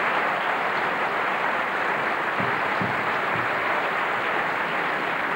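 Audience applauding steadily, with some laughter.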